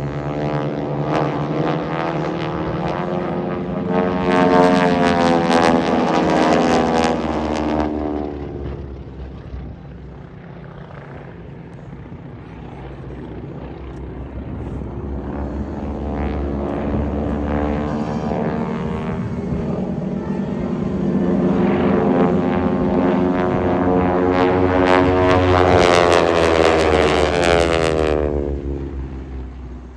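Propeller planes of an aerobatic formation team flying two passes. Each time the engine drone swells and then drops in pitch as the planes go by. The first pass comes a few seconds in, and the second, slightly louder, comes past the middle and falls away near the end.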